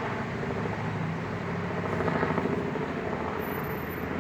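Helicopter in flight, its rotor blades beating in a fast, steady pulse.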